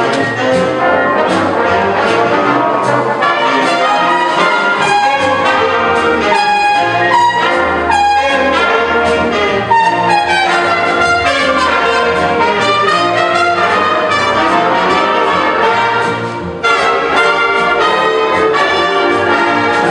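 Big band playing, with the trumpets and trombones of the brass section out in front and an upright bass underneath. The sound dips briefly near the end before the full band comes back in.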